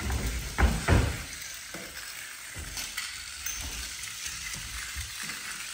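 Battery-powered toy snake wriggling across a tile floor, its motor and jointed plastic body making a steady rattling hiss. A few dull thumps come in the first second.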